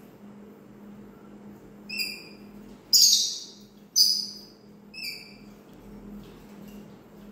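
Birds calling: a short clear whistled note, then two loud harsh screeches about a second apart, then another whistled note, over a faint steady low hum.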